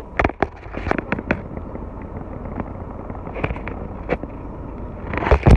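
Irregular sharp clicks and knocks over a low rumble, a few close together in the first second or so and a louder cluster near the end.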